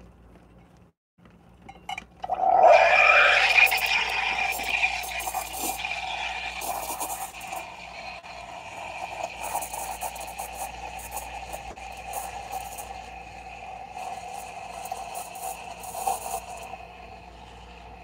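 La Pavoni Pro steam wand hissing into milk in a pitcher, steaming milk. It starts suddenly about two and a half seconds in, is loudest and shrillest for the first few seconds, then settles into a steadier, quieter hiss.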